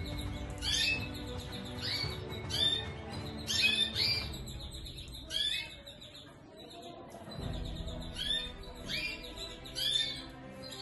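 Domestic canaries giving short, repeated chirps every second or so, over background music with sustained low notes.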